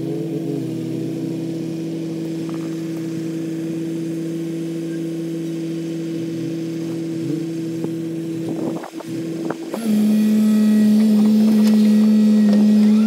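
L&T-Komatsu PC200 crawler excavator's diesel engine running with a steady drone. About ten seconds in it turns louder and higher-pitched.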